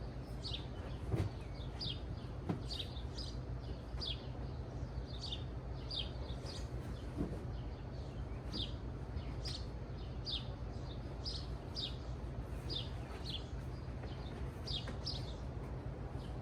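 A small bird chirping over and over, short high notes that fall in pitch, about one or two a second, over a steady low rumble. A few faint knocks come early on and once midway.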